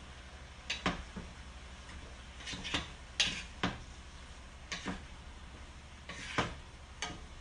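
Utensil knocking and scraping against a frying pan as stir-fried vegetables are stirred: a string of irregular clinks and knocks.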